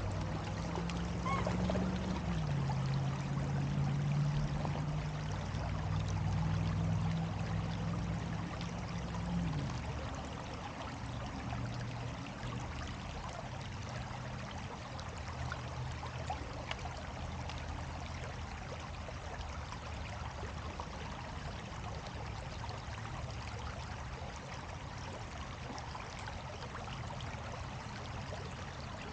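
Steady rush of water with a low motor hum that drops in pitch about two seconds in and fades out about ten seconds in.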